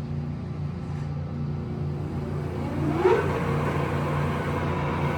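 American engine lathe running with a steady hum. About three seconds in, a short rising tone comes in and then settles into a higher steady line over the hum, as the carriage and cross-slide are being moved.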